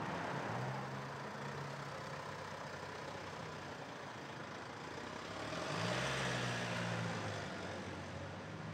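Vehicle engine running steadily at low revs, with a rise and fall in pitch and level about six seconds in.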